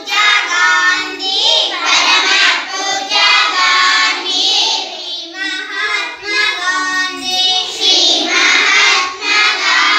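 A group of young children singing together in chorus, loud and continuous.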